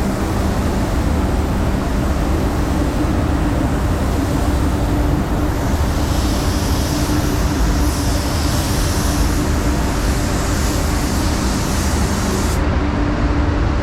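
Paint booth fans running with a steady low drone and hum, joined about halfway through by the high hiss of a spray gun's compressed air, which cuts off sharply near the end.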